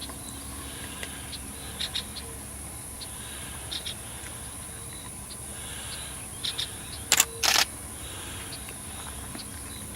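Camera shutter clicks, a few single and paired quick clicks, then two louder bursts of noise about seven seconds in, over a steady high-pitched hiss.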